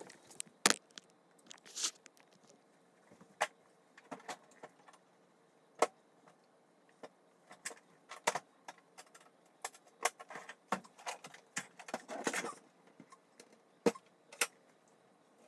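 Handling noise close to the microphone: scattered sharp clicks and soft knocks, with a short rustle about twelve seconds in, as a phone camera is moved, set down and someone shifts about right beside it.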